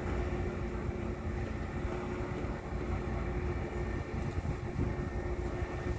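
Heavy construction machinery running steadily: a low engine rumble with a constant hum. Wind gusts on the microphone.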